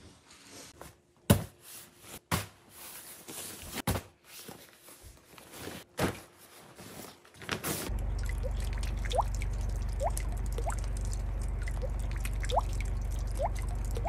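Knocks and rustles of gear being packed into bags, then, about eight seconds in, meltwater dripping from a snowy roof edge: short rising plinks about once a second over a steady low rumble.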